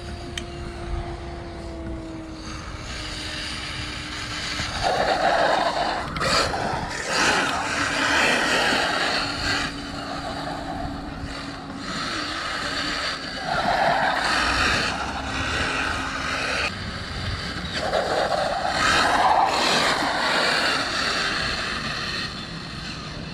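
1/8-scale electric RC buggy with a 1900 kV brushless motor on 4S, driving on concrete: motor whine and tyres hissing over the pavement, swelling louder in four surges as it speeds closer.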